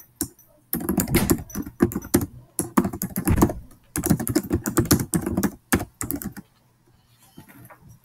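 Typing on a computer keyboard: two quick runs of key clicks with a short pause between, stopping a little after two-thirds of the way through.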